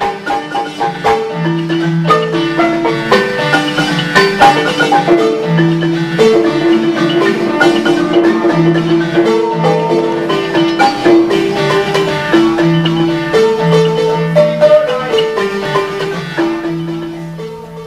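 Balafon, a West African wooden xylophone, playing a quick repeating melody of struck notes, fading out near the end.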